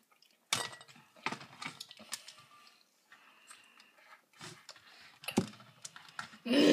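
Close-up mouth sounds of biting into and chewing a lemon wedge: scattered, irregular wet clicks and smacks. A loud voice cuts in near the end.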